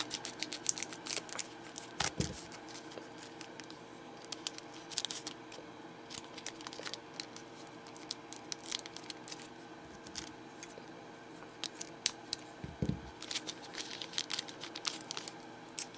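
Scissors snipping open a foil trading-card booster pack, then the foil wrapper crinkling and cards being slid out and handled: a scattered run of small clicks and rustles.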